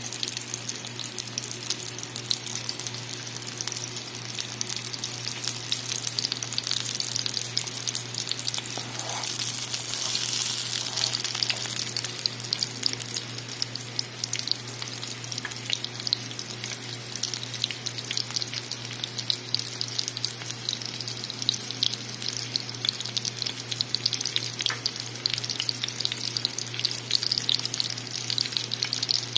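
Chicken breast frying in oil in a skillet: a steady sizzle full of small crackles and spatters, over a steady low hum.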